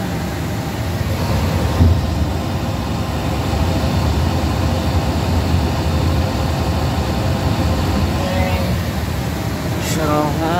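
Airbus A330 green hydraulic system's electric pump switching on with a thump about two seconds in, then running with a steady low hum as it pressurises the system to 3000 psi, over steady cockpit ventilation noise.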